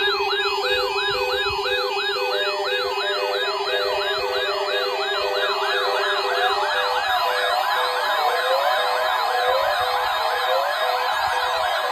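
Layered electronic alert tones: a siren sweeping up and down about three times a second over a steady low tone and a repeating short beep. About two-thirds through, the low tone stops, a steady higher tone comes in, and the sweeps turn busier and overlapped.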